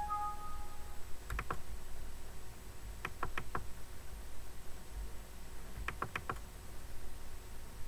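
A short Windows alert chime, two tones sounding together for under a second, as an error dialog pops up. Then computer mouse clicks in quick groups of two or three, a double-click about a second and a half in, then triple runs around three and six seconds.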